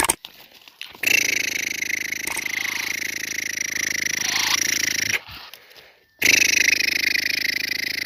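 Caged black francolin giving long, harsh buzzing calls in two bouts, the first about four seconds long and the second starting about six seconds in. The calls belong to the bird's excited breeding mood ('masti').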